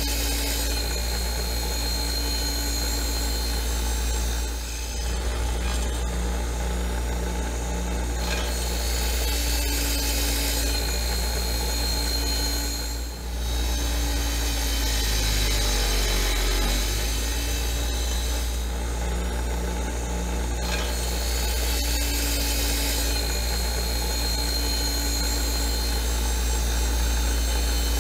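Workshop machinery running: a motor-driven power tool with a steady low hum and a high whine that comes and goes, dipping briefly twice.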